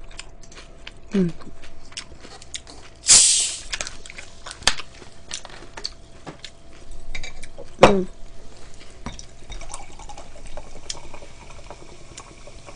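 Eating sounds from a bowl of cold noodle soup: small clicks of chopsticks and dishes, with a loud slurp about three seconds in and two short falling mouth sounds.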